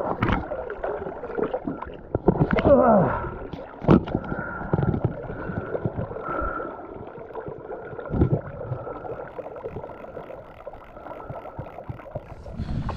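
River water lapping and gurgling right at the microphone, with sharp knocks and handling bumps from the fly-fishing gear, loudest about four and eight seconds in, and a short falling groan about three seconds in.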